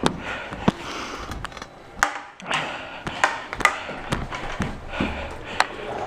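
Hockey play: a string of sharp, irregular knocks and clicks from sticks, puck and skates, about nine in six seconds.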